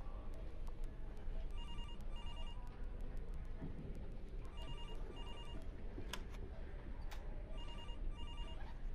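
A telephone ringing in a double-ring pattern: three pairs of short rings about three seconds apart, over a low room background.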